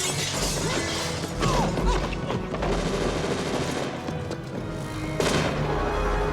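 Film score music with several sudden crashes and booms from action sound effects mixed in; the loudest hit comes about five seconds in.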